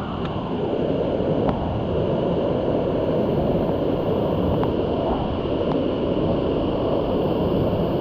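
Waterfall rushing, a steady even sound of falling water.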